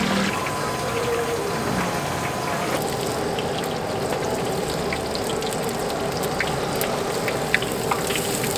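Stinky tofu cubes deep-frying in a wok of hot oil, the oil bubbling and sizzling steadily, with scattered light clicks from a metal skimmer stirring and lifting the pieces.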